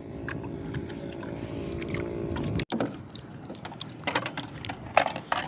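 Outrigger boat's engine running steadily, with water noise. About halfway through it cuts off abruptly, leaving quieter sounds with a few short knocks.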